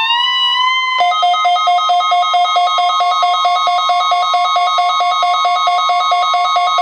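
Layered electronic emergency alert tones for a weekly test. A steady high attention tone runs with a siren-like tone that has just wound up to pitch and holds steady. From about a second in, a rapid, even pulsing beep on two alternating pitches joins them.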